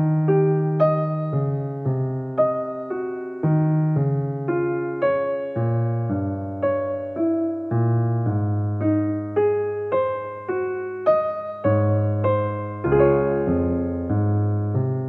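Background music: a gentle, slow electric piano melody, single notes struck about twice a second over low held bass notes.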